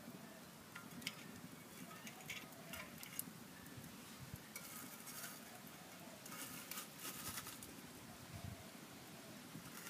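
A small bed of wood coals crackling faintly under a canteen cup of water, with scattered soft clicks and pops in small clusters over a faint hiss.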